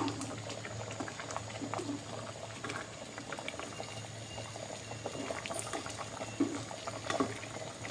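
Thick red bean and sago porridge bubbling in a pot with many small pops as it is stirred with a ladle, with a few brief knocks of the ladle against the pot.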